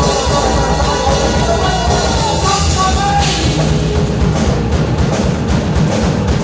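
Live rock band playing: electric guitar over a drum kit, loud and continuous. About halfway through the cymbals come up louder.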